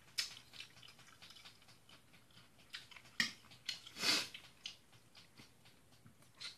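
A person chewing a mouthful of spaghetti: quiet, wet mouth clicks and smacks at irregular intervals, with one brief louder noisy sound about four seconds in.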